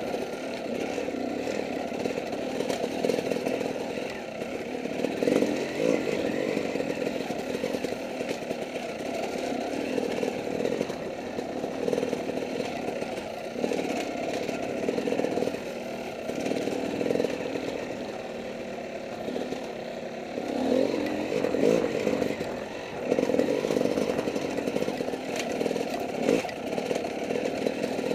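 Dirt bike engine riding single track, its revs rising and falling with the throttle in repeated surges.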